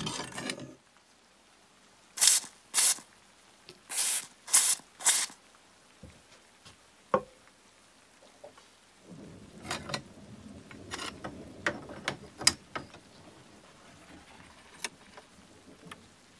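Hand work on an old knife: six short scraping or rubbing strokes in two groups in the first half, then one sharp click with a brief ring and a stretch of light clicks and knocks from tools and metal being handled.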